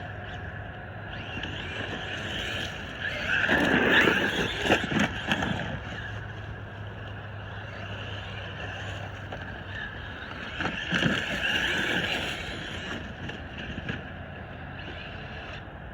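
Electric RC monster truck driving, its motor whining steadily with tyre and chassis noise, growing louder twice as it runs close, about three seconds in and again about ten seconds in.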